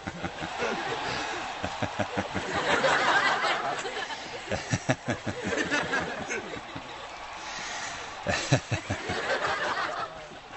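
Audience laughter: rolling, with rapid bursts of laughing that swell about three seconds in and again near the end.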